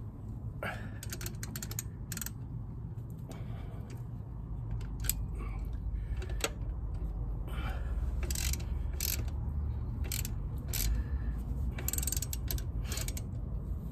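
Hand ratchet clicking in short irregular runs as T40 Torx bolts on a motorcycle's rear brake caliper are turned and tightened, over a low steady rumble.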